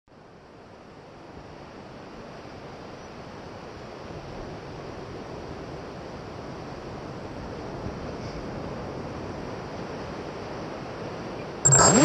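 Steady surf and wind noise on a beach, slowly growing louder. Near the end the FPV drone's motors spin up suddenly and loudly with a whine that rises and wavers in pitch.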